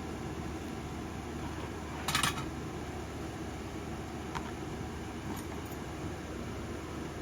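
Steady fan-like whirring hiss with a low hum, broken about two seconds in by one short rasping scrape and later by two faint clicks, typical of tools being worked against a circuit board while desoldering.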